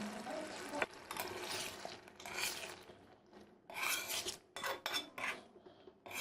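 A cooking utensil scraping and stirring in a karahi of chicken curry: a sharp knock against the pan about a second in, then several short scraping strokes.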